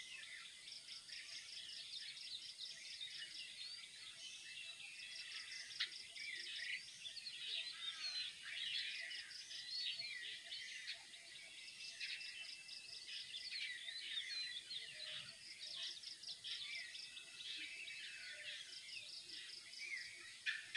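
Dawn chorus: many birds chirping and calling at once, high-pitched, with quick repeated trill notes coming back several times.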